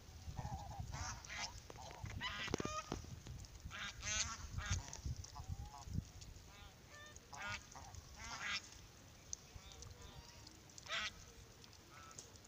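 A flock of domestic ducks calling in quick runs of short, nasal honks and quacks, busiest in the first half and then more scattered. A low rumble sits under the first few seconds.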